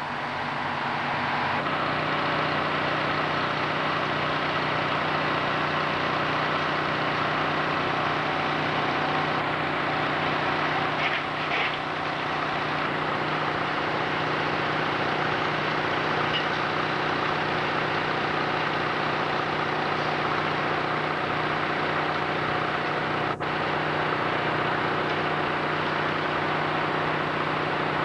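Fire apparatus engines running steadily at a working fire, a constant mechanical drone over a wash of noise.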